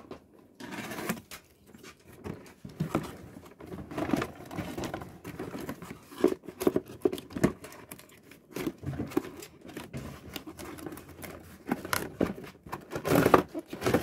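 Cardboard box being opened by hand: irregular scraping, tapping and crinkling of cardboard flaps and an inner box sliding out. The loudest scuffing comes near the end.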